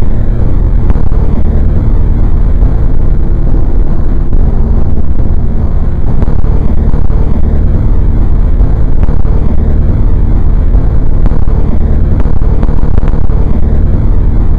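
Loud, steady low rumble, heaviest in the bass, with no breaks or rhythm.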